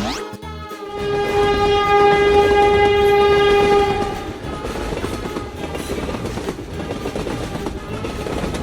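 A train horn blows one long steady note, starting about a second in and stopping about four seconds in, then the steady running noise of a train on the rails.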